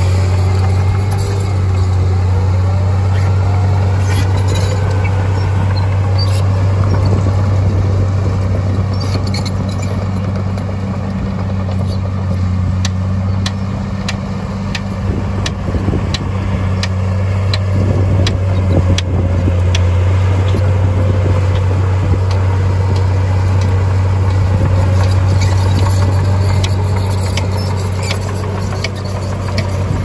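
Heavy earthmoving machine's diesel engine running steadily with a deep, even hum, with many short metallic clicks and clanks through the middle.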